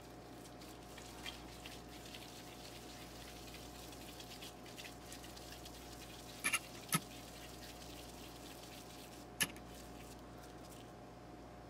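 Gloved hands squeezing and patting raw minced mutton into kebab patties, faint soft squishing and pattering over a steady low hum. There are a few sharp taps: two close together about six and a half to seven seconds in and one near nine and a half seconds.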